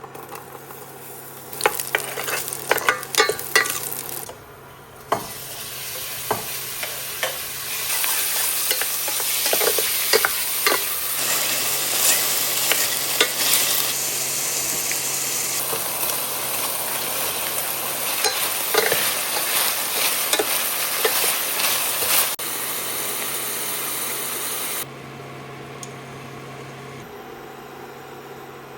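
Food sizzling in a hot pan while a utensil is stirred, knocking and scraping against the pan. The sizzle cuts off suddenly near the end.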